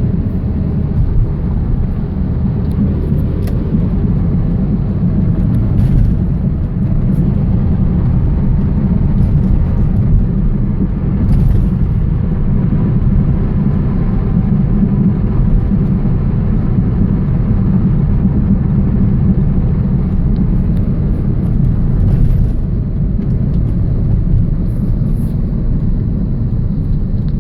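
2000 Toyota Celica GTS on the move, giving a steady low rumble or drone that the owner suspects is a bad wheel bearing.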